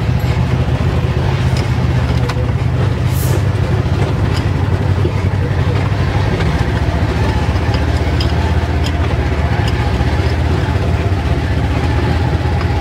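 Polaris RZR Trail S 1000 side-by-side's twin-cylinder engine running steadily, heard from the cab as it crawls over a rocky trail, with scattered clicks and knocks.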